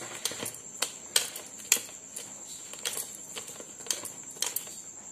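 Small steel bowl pressed and rubbed through cooked chana dal on a steel plate, clinking and tapping against the plate in irregular clicks as the dal is mashed.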